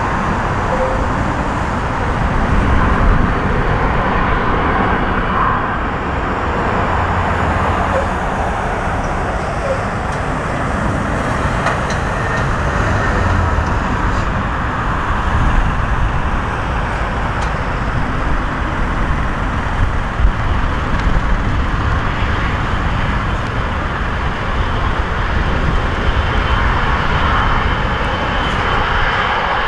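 Jet engines of a Boeing 777-200ER airliner rolling out on a wet runway after landing: a steady rumble and hiss. A thin, high fan whine comes in near the end as the aircraft draws closer.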